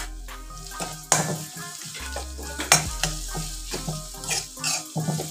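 Onions, ginger-garlic paste and green chillies sizzling in hot oil in an iron kadhai, stirred with a metal spoon, with repeated sharp scrapes of the spoon against the pan.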